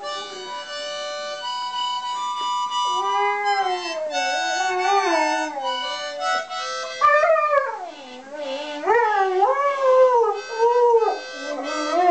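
A dog howling along to music: steady held chords from a small instrument at first, then the dog joins in about three seconds in with long wavering howls that rise and fall in pitch, growing louder in the second half as several howls follow one another.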